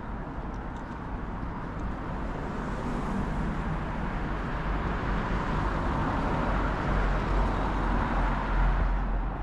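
Street traffic with a motor vehicle approaching, its tyre and engine noise growing steadily louder and passing close by near the end.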